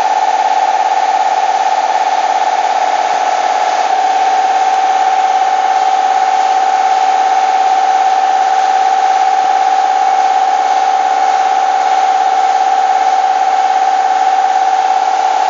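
Steady high-pitched machine whine from a motor-driven tool running continuously, with a slight step in pitch about four seconds in.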